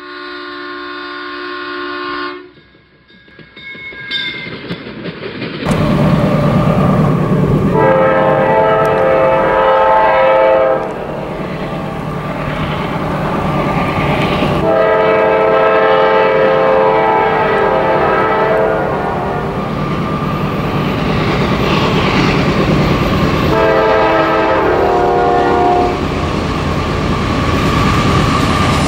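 A short tonal intro sting, then a CSX freight train's diesel locomotives rumbling past with wheels on rail, the locomotive air horn sounding a multi-note chord in several long blasts.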